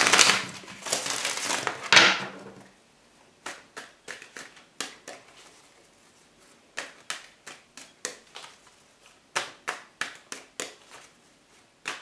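Tarot deck being shuffled by hand: a dense rush of card noise for the first two or three seconds, then scattered light flicks and taps of single cards.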